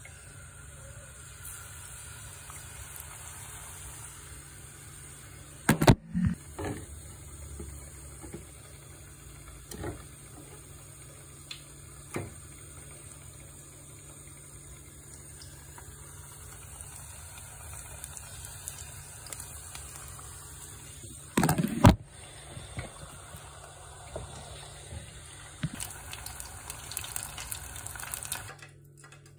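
Battered whiting fillets deep-frying in a pan of hot oil: a steady sizzling hiss, with two sudden loud bursts about six seconds in and again about twenty-two seconds in, and the sizzling growing busier near the end.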